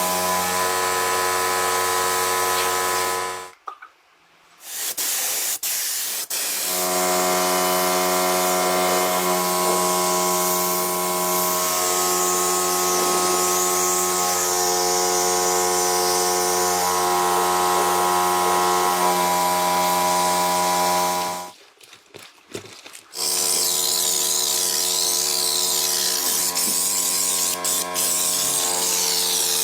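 An electric power tool running steadily at a fixed pitch with a hiss on top, stopping twice for a couple of seconds and starting again.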